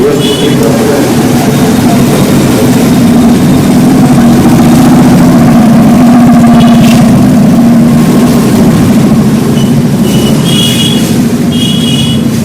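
Bajaj Pulsar 150's single-cylinder four-stroke engine running steadily, getting a little louder toward the middle and easing off again.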